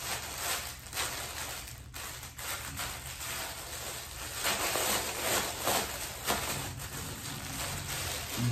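Clear plastic bag crinkling and rustling irregularly as it is handled and pulled open.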